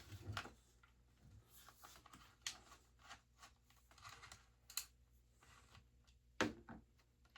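Faint scattered clicks and taps of hand work on a goalie mask's chin-strap screw and plastic hardware, with one louder knock about six and a half seconds in.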